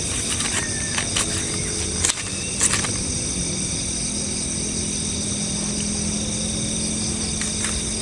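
Night insect chorus, crickets trilling in steady high-pitched bands, under a faint low hum. A couple of sharp clicks come about two seconds in.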